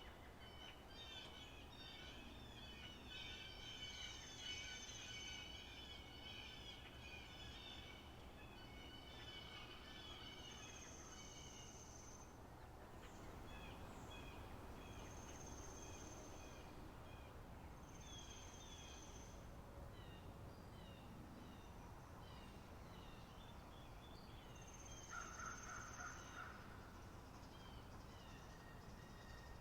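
Faint spring-meadow ambience of many small birds chirping and singing over one another. A long, steady, high note is held for over a second about five times.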